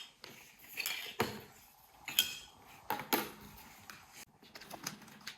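Cutlery and dishes clinking during a meal: several short, separate clinks and knocks.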